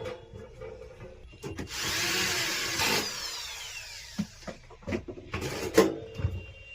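A small power tool's motor runs for about a second and a half, then winds down with a falling whine, followed by several sharp knocks and clicks.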